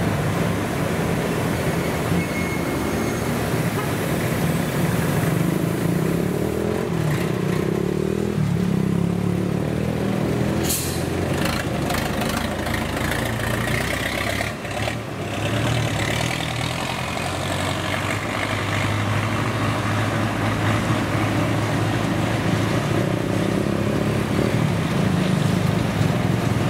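Old truck's engine running as the truck drives up and turns past close by, over steady street traffic and motorbikes. A brief sharp noise is heard about eleven seconds in.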